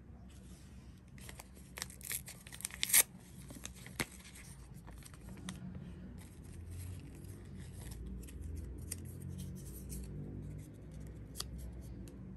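A paper tea bag packet being opened by hand: a run of crisp rustles and sharp clicks, the loudest about three seconds in, then lighter handling of the paper and the tea bag, over a low steady hum.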